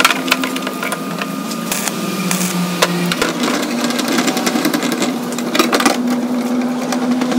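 Steel parts of a homemade welded bar tool clicking and clinking as they are slid and fitted together, the clicks getting busier about three seconds in, over a steady machine hum.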